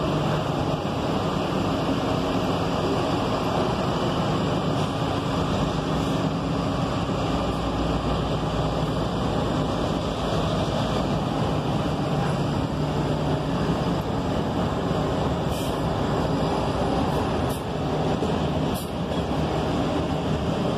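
Diesel-electric hybrid city buses running close by, a steady low engine hum. A few short, faint high hisses come in the last few seconds.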